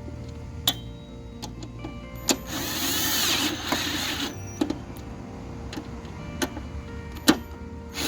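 Sharp metal clinks of tools and parts being handled while the new blade spindle is bolted into the mower deck, about five of them spread out, with a longer noisy burst of tool work lasting about a second and a half a little before the middle, all over background music.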